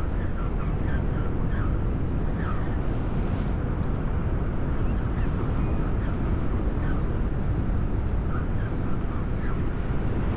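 Steady wind rumble on the microphone, with a few faint, short bird chirps scattered through.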